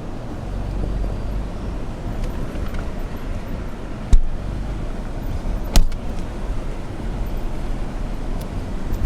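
Toyota Tacoma pickup crawling up a rocky trail: a steady low engine and road rumble, with two sharp knocks, one about four seconds in and one about six seconds in, as the truck jolts over the rocks.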